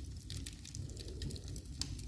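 Wood fire burning in a fireplace, crackling with frequent sharp pops over a steady low rumble.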